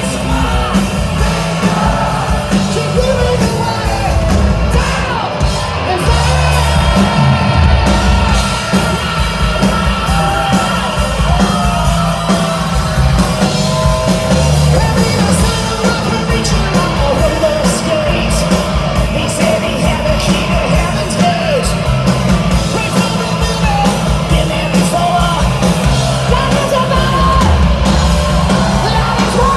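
Live hard rock band playing loud: electric guitars, bass and drums under a male singer's high, shouted vocals, heard from within the club crowd.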